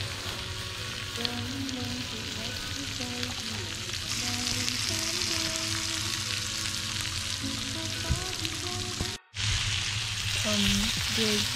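Shrimp, squid and pork sizzling on a hot mookata grill plate: a steady frying hiss that grows a little stronger partway through and drops out for an instant near nine seconds.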